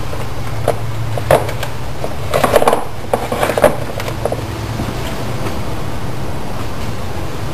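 An engine air filter and its plastic air box being handled during a filter change: scattered short knocks and rustles, mostly in the first half, over a steady low hum.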